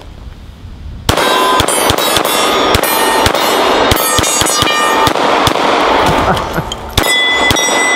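Gen 4 Glock 19 9mm pistol firing a rapid string of shots, about three a second, to empty a magazine. It starts about a second in, with steel targets ringing after the hits, and the last shot comes near the end.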